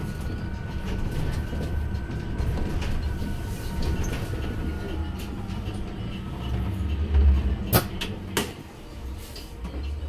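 Heuliez GX337 E battery-electric bus heard from inside the cabin: a low road rumble with a faint electric-drive whine that slowly drops in pitch. About seven seconds in, a heavier thump is followed by two sharp clicks.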